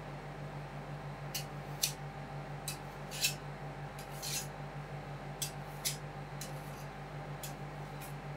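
Metal spatulas tapping and scraping on the cold plate of an ice cream roll machine: about ten short, sharp strokes, with one longer scrape near the middle. The machine's steady low hum runs underneath.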